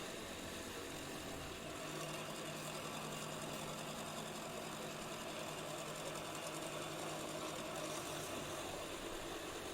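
Faint, steady hum of a drill motor running while a 5/8 inch bit bores holes in the jig, with a low tone held through the middle.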